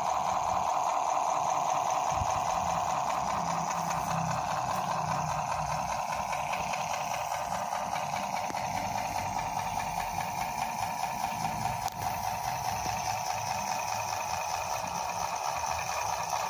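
Small electric motor and plastic gearbox of a battery-powered toy truck whining steadily as it drives along.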